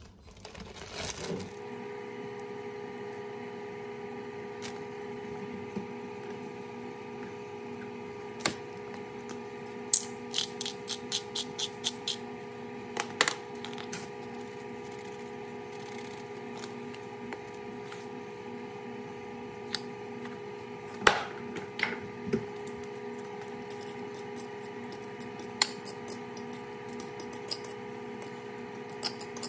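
Kitchen prep sounds: a quick run of clicks as seasoning is shaken over a bowl, then sharper taps and scraping of a metal fork mashing avocado in a ceramic bowl, over a steady hum.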